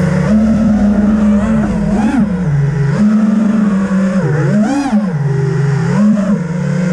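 Brushless motors and propellers of a 5-inch FPV racing quadcopter, recorded on board: a steady buzzing whine that swoops up in pitch and back down about three times as the throttle is blipped.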